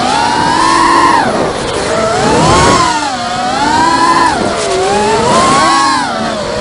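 Brushless motors and 5-inch propellers of an FPV racing quadcopter whining in flight, the pitch swinging up and down every second or two as the throttle changes.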